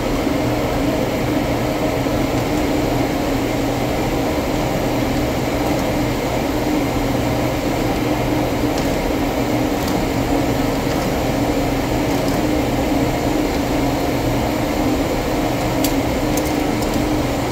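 Steady drone of boiler-room equipment running in the background: an even mechanical noise with a constant low hum that does not change. A few light clicks sound near the end.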